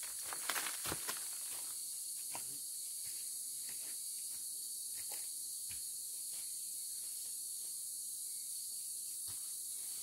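Steady high-pitched drone of forest insects, with a few rustles and footsteps in dry leaf litter in the first second or so and faint scattered ticks afterwards.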